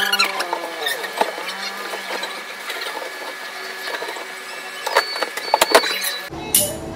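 Wet clothes being handled and loaded into a twin-tub washing machine's spin tub, with scattered clicks and knocks of its plastic lid and controls, the loudest cluster about five seconds in. Near the end the sound changes abruptly to a low hum with a steady tone.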